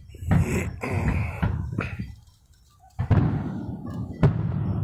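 Aerial fireworks going off: a run of bangs over a low rumble, a short lull just past two seconds, then two more sharp booms about three and four seconds in.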